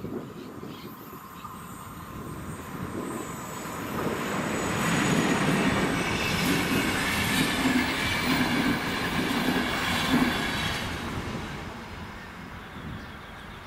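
A RegioJet passenger train of yellow coaches passing over a level crossing. Its rumble on the rails builds from about four seconds in, holds with a run of rhythmic wheel clatter, and fades after about eleven seconds.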